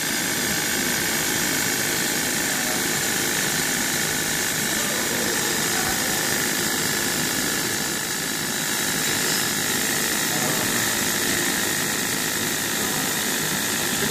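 Laser marking machine running as it engraves a thick acrylic block: a steady, even rushing noise of its fans and moving air, with a faint hum.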